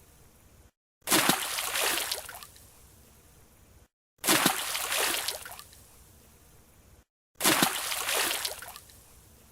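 Diving splash sound effect: a sudden splash of a diver entering the water that dies away over about two seconds, repeated three times about three seconds apart with short silent gaps between.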